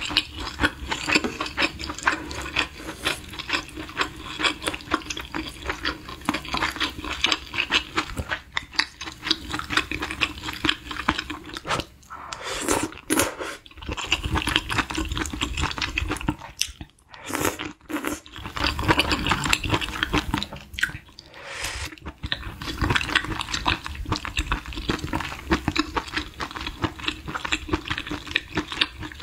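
Wet chewing and mouth smacking while eating beef-intestine hot pot with glass noodles and broth: a dense run of small clicks, with a few brief pauses around the middle.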